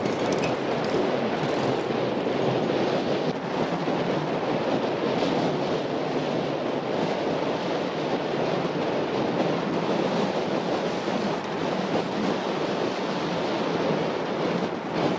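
Steady wind rush on the microphone of a moving motorcycle, mixed with the noise of its engine and tyres on the road.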